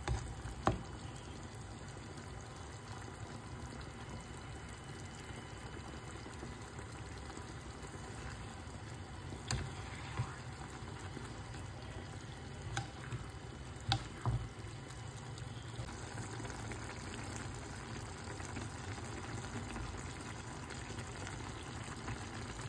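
Mushrooms and broth simmering and sizzling in a frying pan, a steady bubbling hiss, with a few short knocks of a spatula against the pan as the food is stirred.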